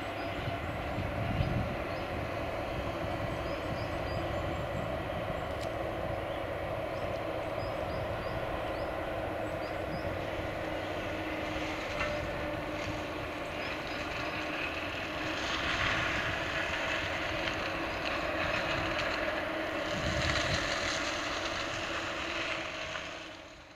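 Komatsu tracked excavator's diesel engine running steadily as it clears brush with the attachment on its arm. The sound grows louder and harsher twice in the second half.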